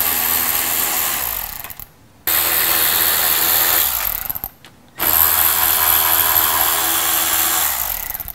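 Hand-held power driver running in three steady bursts of a few seconds each, with short pauses between, as it backs out the screws that hold a car's bumper.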